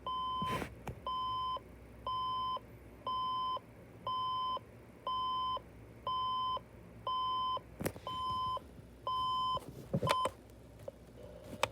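Talking clock radio's alarm buzzer going off: a steady high beep about once a second, eleven beeps in all, stopping about ten seconds in. There are a couple of small clicks from the clock being handled.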